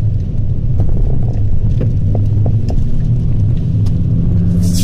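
Steady low rumble of engine and road noise inside a moving car's cabin. A brief hiss comes near the end.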